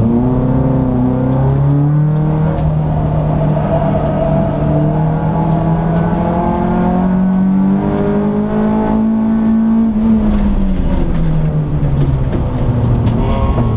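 The Peugeot 206 S16's 2.0-litre four-cylinder engine heard from inside the cabin, pulling hard on track. Its note climbs slowly for about ten seconds, then falls away near the end.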